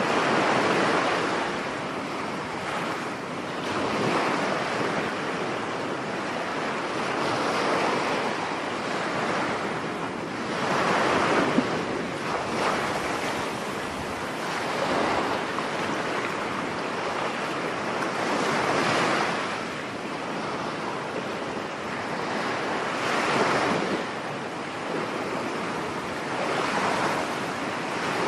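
Storm surf breaking on a beach in strong wind, the waves swelling and falling back about every three to four seconds, with wind buffeting the microphone.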